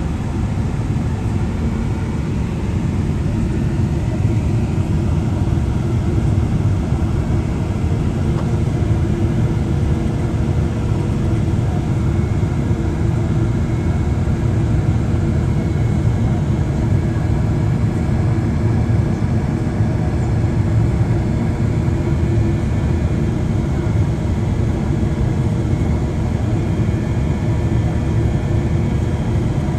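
Steady low rumble inside the cabin of a Boeing 777-300ER on approach: its GE90 engines and the airflow over the fuselage, with a faint steady hum on top.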